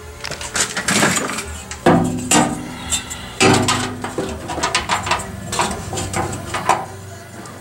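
Sheet-metal patch piece clattering and clanking as it is handled and pressed against the steel wheel tub: a run of sharp metallic taps with two louder clanks that ring on briefly.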